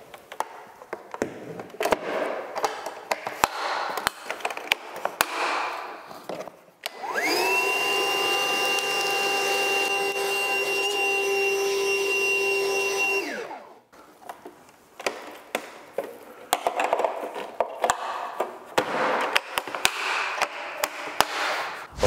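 Milwaukee 18-volt cordless wet/dry vacuum switched on about seven seconds in. It spins up and runs with a steady whine for about six seconds while sucking up debris from the floor, then winds down. Before and after, there are clicks, knocks and rustling as the vacuum and its hose are handled.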